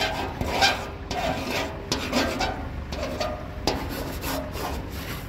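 Close, irregular rubbing and scratching noise, with several sharper scrapes along the way.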